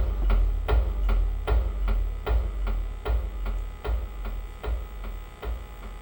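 A steady beat of percussive hits, about two and a half a second, each with a low thump, over a steady low hum.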